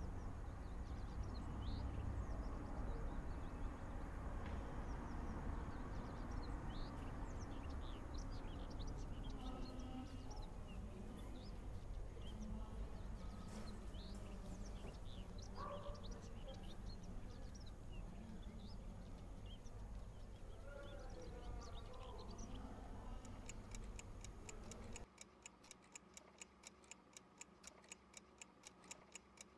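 Outdoor ambience: a steady low rumble with scattered bird chirps. About 25 seconds in it gives way abruptly to the quick, steady ticking of many wall clocks.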